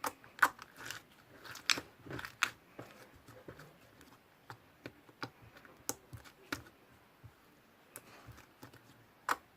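Irregular short crunches and clicks, several in quick succession in the first two and a half seconds, then sparser.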